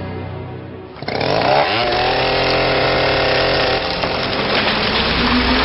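A chainsaw starts about a second in, revs up quickly and then runs steadily.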